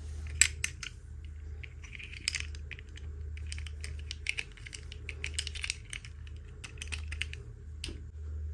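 Small plastic toy pieces and packaging handled by hand: quick, irregular light clicks and taps, a few sharper than the rest, over a steady low hum.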